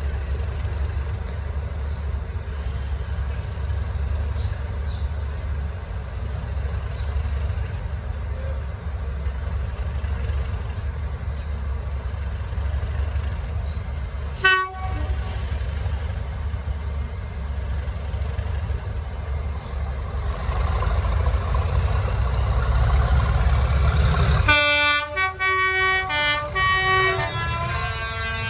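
English Electric Class 37 diesel locomotive engine growling steadily and getting louder over several seconds, then the locomotive's horn sounds near the end, changing pitch a few times.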